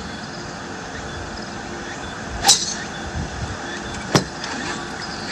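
A driver striking a golf ball off the tee with a sharp crack about two and a half seconds in, then a second sharp knock under two seconds later, over a steady outdoor background hiss.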